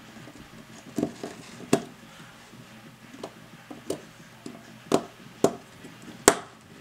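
Irregular sharp clicks and taps of a precision screwdriver and small screws against the metal rear mount of an Olympus OM 50mm f/1.4 lens as the mount is screwed back together. The loudest click comes near the end.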